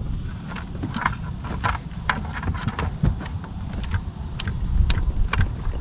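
Irregular clicks and knocks of fishing gear being handled on a boat deck, over a steady low rumble.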